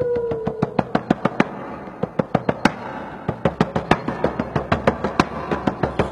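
Large hide-covered frame drum beaten fast with a beater, about six strokes a second with some louder accents. A held howl-like vocal cry, imitating a wolf, slides down in pitch and ends just under a second in.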